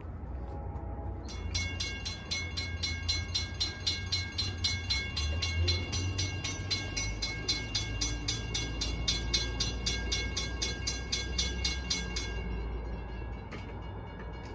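Railroad grade-crossing bell ringing, about three to four strikes a second, starting about a second in and stopping near the end, over a steady low rumble.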